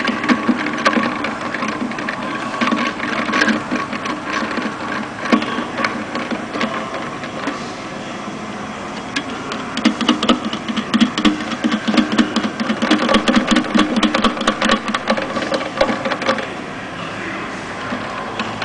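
Automatic miter saw running with a steady machine hum, overlaid by bursts of metallic clattering and rattling as the aluminium profile and clamp are handled. The rattling is densest from about ten to sixteen seconds in.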